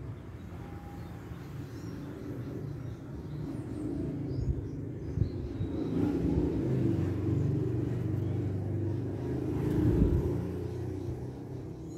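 A motor vehicle passing close by: its engine hum grows louder over several seconds, is loudest about ten seconds in, then fades away.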